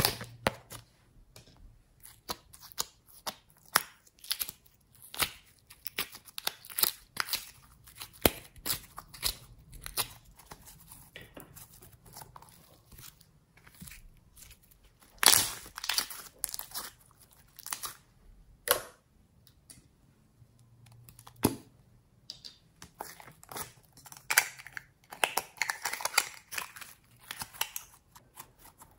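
Hands squeezing, stretching and folding glossy slime: an irregular run of sharp, sticky pops and clicks, loudest about halfway through and thickening into a crackle near the end.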